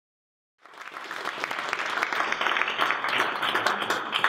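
Audience applauding: many hands clapping together, cutting in suddenly about half a second in and going on evenly.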